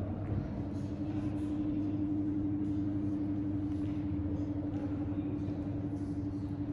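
Steady low mechanical hum with one held, unchanging tone running through it, and a few faint light ticks.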